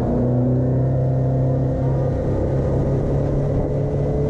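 Engine running steadily at a constant speed, a low hum that holds nearly one pitch.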